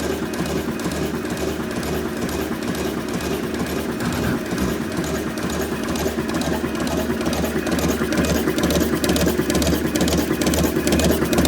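A machine running steadily with a quick, even rhythmic clatter and a low pulsing hum, growing somewhat louder toward the end.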